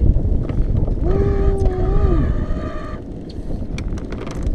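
Wind buffeting the microphone in a small open aluminium boat, a steady low rumble. About a second in, a single held tone sounds for about a second and drops in pitch as it ends.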